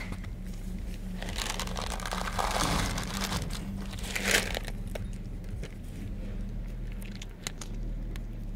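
A cat chewing dry kibble, crunching in quick, irregular clicks, with a louder rustle about one to three seconds in and a short sharp scrape about four seconds in. A steady low hum sits underneath.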